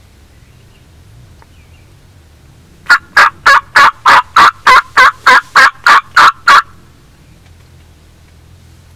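A run of about twelve loud, evenly spaced turkey call notes, roughly three a second, lasting a little under four seconds.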